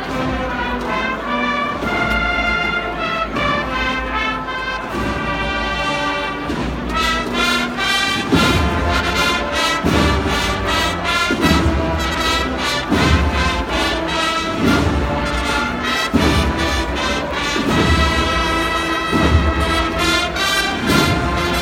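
Processional marching band of brass and drums (an agrupación musical) playing a march with a sustained brass melody. About eight seconds in, heavy bass drum strokes join at a slow, regular beat.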